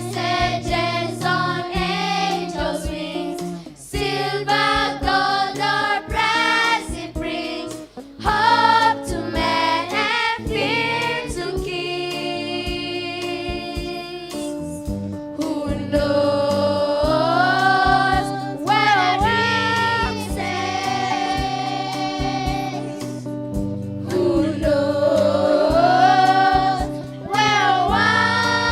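A choir singing a Christian song over musical accompaniment, with held notes and the melody gliding between them.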